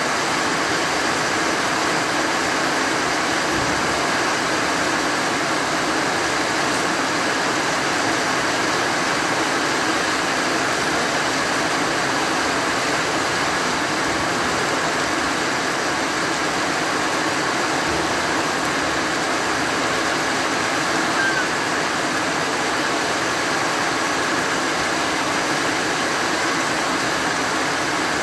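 Heavy rain falling steadily on trees and grass: an even, unbroken hiss.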